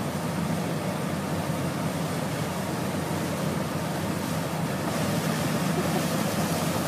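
Steady rush of a high-pressure water jet gushing out of a pipe at a truck-mounted drilling rig, with a low steady hum underneath.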